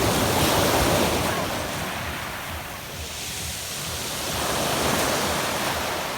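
Sea waves breaking and washing up a pebble beach, in two swells about four and a half seconds apart, the first the louder.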